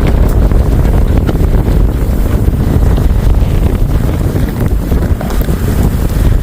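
Strong wind buffeting the microphone in a snowstorm: a loud, unsteady low rumble with a hiss above it.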